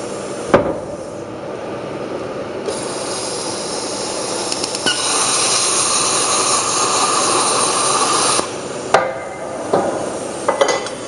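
Plasma cutter cutting metal: a steady rush of noise that grows louder about three seconds in and cuts off suddenly about three-quarters of the way through. A few sharp clicks and knocks follow.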